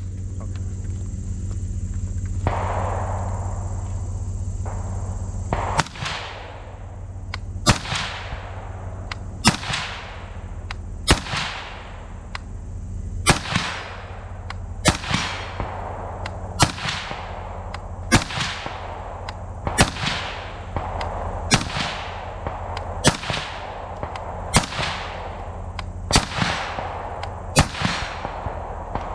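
Airsoft electric gun firing single shots: sharp cracks about every second and a half, around fourteen in all beginning about six seconds in, each followed by a short fading tail.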